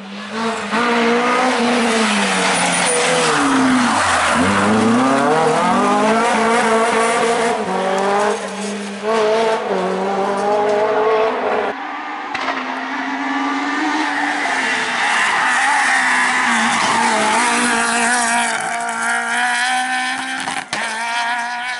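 Small front-wheel-drive rally cars' four-cylinder engines at high revs, pulling up through the gears with repeated rises in pitch. About four seconds in the revs fall steeply, then climb again. Near twelve seconds the sound changes suddenly to another car accelerating hard.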